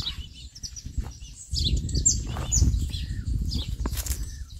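Small birds chirping in short high calls throughout, joined about a second and a half in by a louder low rumbling noise that stops near the end.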